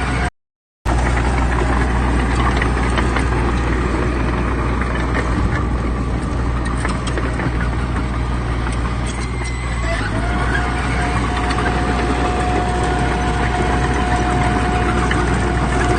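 Heavy diesel earthmoving machinery running steadily, with a brief dropout to silence under a second in and a steady high whine joining about ten seconds in.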